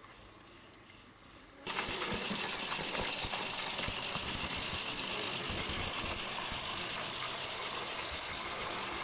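Fleischmann 1308 model steam locomotive running along the track with its freight train: the steady whir of its small electric motor and gearing mixed with rapid fine clicking of wheels on the rails. It jumps suddenly from faint to loud about two seconds in.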